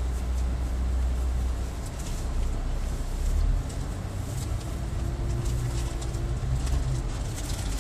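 Scania K440 double-decker coach's six-cylinder diesel engine heard from inside the bus. It rumbles at idle, then the note changes about three and a half seconds in as the coach pulls away, with a faint rising whine.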